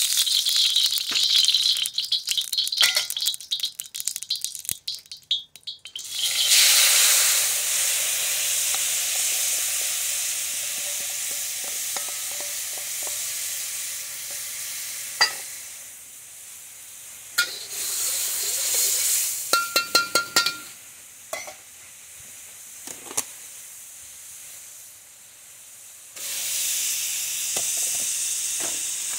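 Hot wok sizzling: crackly spattering at first, then a loud steady sizzle that slowly dies down, with a few sharp clinks in the middle. The sizzle rises again near the end as flat rice noodles go into the pan.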